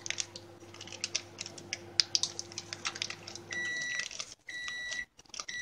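Sponge ladyfinger biscuits crackle lightly as hands press them into a springform pan, over the steady hum of a microwave oven running. About three and a half seconds in, the hum stops and the microwave beeps, a high beep about once a second, signalling that its cooking cycle is done.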